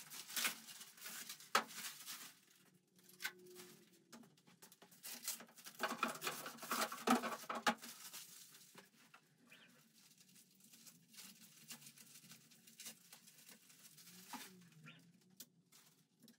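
Clear plastic packaging rustling and crinkling as it is handled and pulled off a 3D printer, with scattered light clicks and knocks; the crinkling is densest around the middle.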